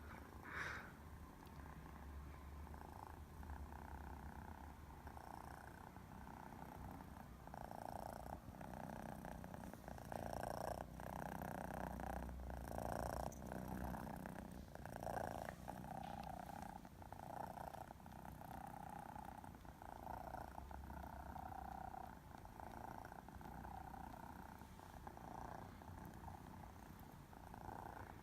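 Domestic cat purring, in pulses about once a second.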